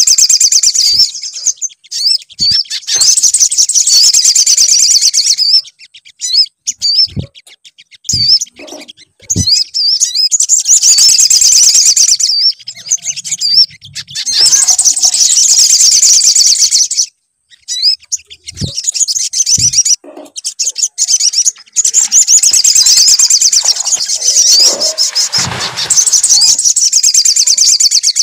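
Sogon songbird singing: long bursts of rapid, high, wavering chirps broken by short pauses, with a few soft thumps between them.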